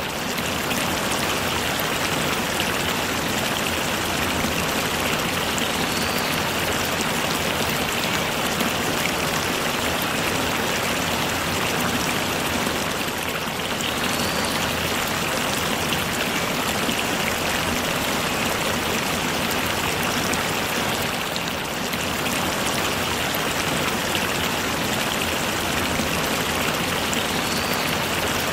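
Steady rainfall, an even hiss of falling rain with no change through the whole stretch.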